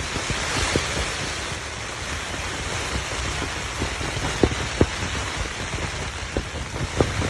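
Heavy rain falling in a strong wind, with a steady hiss, a low wind rumble on the microphone, and scattered sharp taps of big drops hitting a surface.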